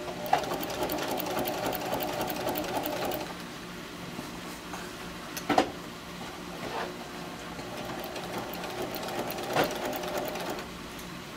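Sewing machine stitching in two runs of about three seconds each, with a quieter pause and a sharp click between them.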